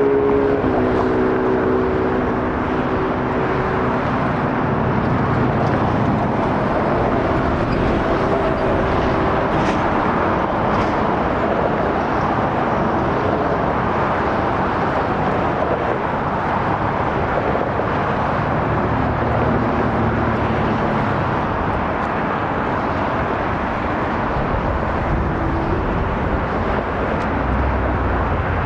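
Airbus A350-900's Rolls-Royce Trent XWB jet engines at takeoff power: a loud, steady roar, with a few humming tones in the first few seconds that drop slightly in pitch.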